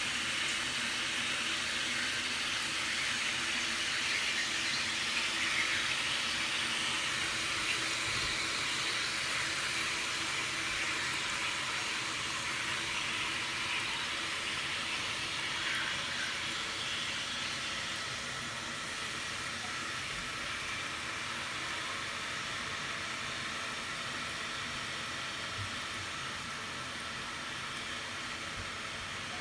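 Handheld shower head running into a filling inflatable baby bathtub: a steady hiss of spraying water that eases slightly about two-thirds of the way through.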